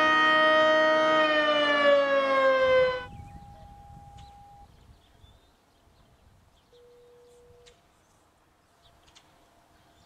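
Outdoor warning siren sounding a steady tone, then falling in pitch as it winds down, cut off abruptly about three seconds in. Near silence follows, broken only by two faint, short steady tones, the first higher than the second.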